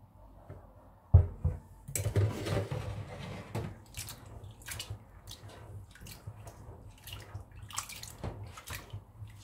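A plastic bowl knocks down into a stainless steel sink about a second in. Then hands swish and rub soaked beans in the bowl of water, with many small splashes and clicks, as the beans are scrubbed to loosen their skins.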